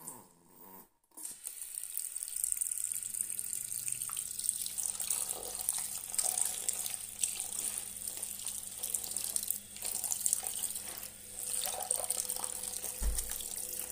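A bathroom washbasin tap runs steadily into the sink from about a second in, while socks and clothes are hand-washed under it, with hands squeezing and rubbing them in soapy water. A low steady hum sits underneath.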